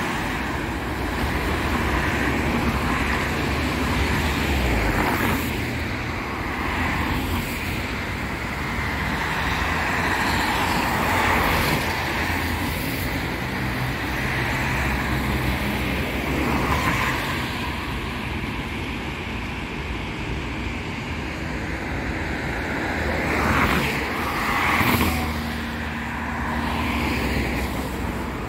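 Road traffic: cars and a minibus passing on wet asphalt, tyres hissing and engines running. The noise swells and fades as vehicles go by, with one louder pass near the end.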